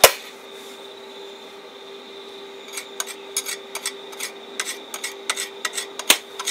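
Stick-welding electrode, a thin 1.6 mm rod, being scratched and tapped against a thin steel bracket to strike an arc with an inverter arc welder. From about three seconds in it gives short, irregular scratchy crackles that do not settle into a steady arc, so the arc is not catching. A single sharp snap comes at the very start.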